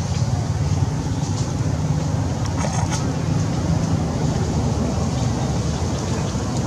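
Steady low rumbling noise, with a few faint high ticks about a second and a half and three seconds in.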